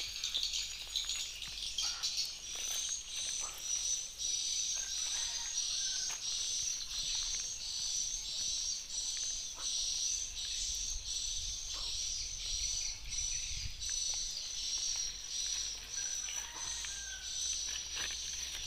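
Steady, high-pitched chirping that pulses about twice a second, from outdoor wildlife.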